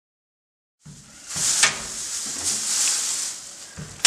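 Pre-taped thin plastic masking film rustling and crinkling as it is pulled and smoothed over kitchen cupboard doors, starting abruptly just under a second in and coming in swells, with a couple of sharp ticks.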